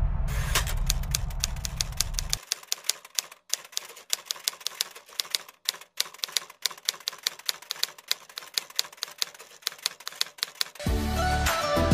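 Typewriter keys clacking in a quick, uneven run of several strikes a second, the sound effect for text typing onto the screen. A low rumble dies away over the first two seconds, and music comes in near the end.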